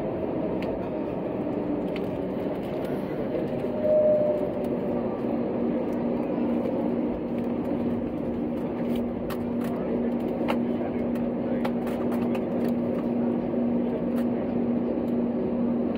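Cabin noise of an Airbus A320neo taxiing, heard from inside the cabin: a steady engine and airflow hum at taxi power, with a low steady drone setting in about three seconds in and a few light clicks and knocks.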